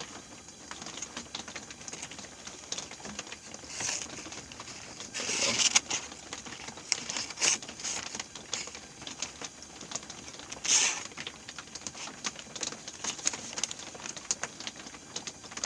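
A small stainless steel folding knife slicing through a sheet of damp paper, with a few short hissing cuts standing out over a steady light patter of rain.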